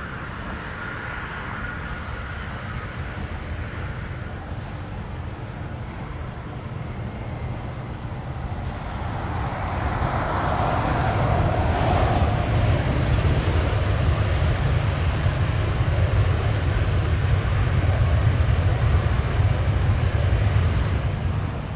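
Jet airliner's engines, growing louder from about ten seconds in into a loud low rumble, with a whine that falls in pitch as it passes. The noise drops off sharply near the end.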